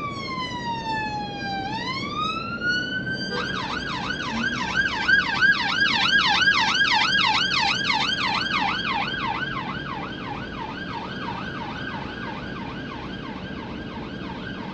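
Police car siren on a slow wail, falling and then rising, that switches about three seconds in to a fast yelp of roughly three sweeps a second. It grows louder to a peak near the middle and then fades as the vehicle passes.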